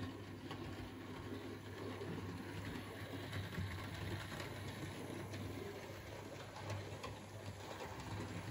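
Hornby OO gauge Flying Scotsman model locomotive running on the track, its small electric motor giving a steady low hum, with faint clicks from the wheels over the rails.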